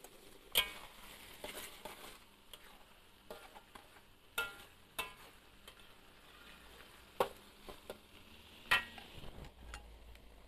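Blended green chilli, onion and garlic paste sizzling softly as it fries in oil in a wok, while a metal spatula stirs it and clinks sharply against the pan now and then, about half a dozen times.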